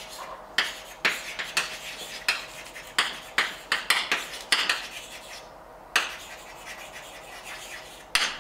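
Chalk on a blackboard while writing: a quick series of sharp taps and short scratchy strokes, with a lull of about two seconds near the end before one last tap.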